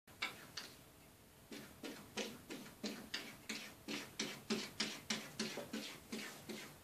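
Maine Coon cat's paw tapping and batting against a window pane, a quick run of glassy knocks at about three a second after a short pause near the start.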